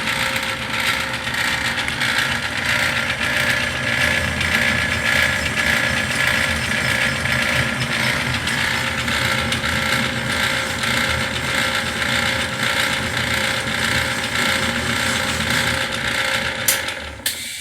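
Atlas metal lathe running under power with a steady gear clatter while cutting the ring lands on a piston. There is a sharp click shortly before it stops abruptly near the end.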